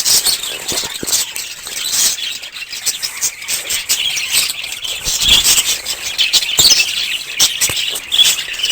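An animal's high-pitched calls: many short cries in quick succession, with a few louder ones near the end.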